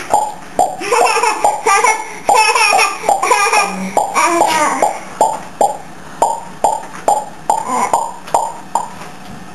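Repeated mouth pops, about two a second, with a baby laughing and giggling at them, the laughter strongest in the first half.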